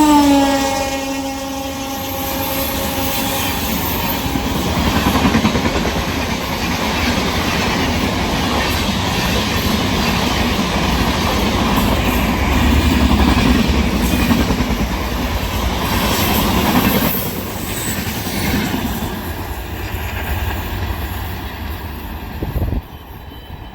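A speeding train passing: its locomotive horn drops in pitch as it goes by and fades away over the first few seconds, then the rumble and wheel clatter of the coaches rushing past, loudest until about two-thirds through, then quieter, cutting off suddenly near the end.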